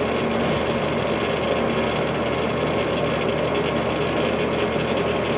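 Jet GH-1660 toolroom lathe running with its carriage apron power feed engaged: a steady, even machine hum with a few constant tones.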